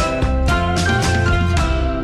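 Instrumental background music with a steady beat, about two strokes a second.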